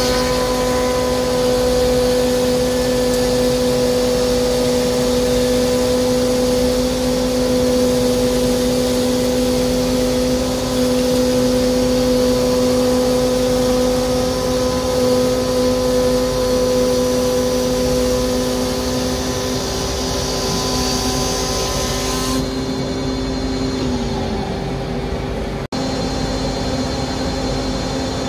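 Charnwood PT10S planer thicknesser with a spiral cutter block, driven by a 2200 W induction motor, running with a steady hum and hiss. Past the three-quarter mark the hiss drops away and the hum briefly sags in pitch.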